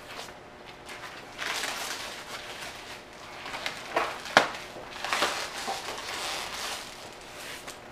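Plastic packaging wrap rustling and crinkling as a new door panel is handled and pulled from its wrapping, with a couple of sharp taps about four seconds in.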